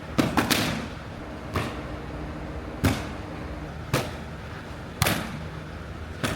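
Punches landing on boxing pads: a quick burst of three hits near the start, then single sharp smacks roughly once a second.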